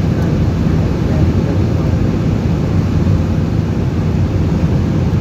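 Steady engine and airflow noise inside the cabin of an Airbus A320-214 climbing after takeoff, heard from a window seat over the wing, its CFM56 turbofans at climb thrust. It is a loud, even rumble, heaviest in the low range.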